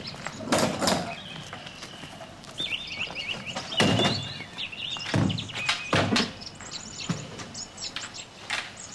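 Small birds chirping in quick runs, with several dull thuds and knocks among them.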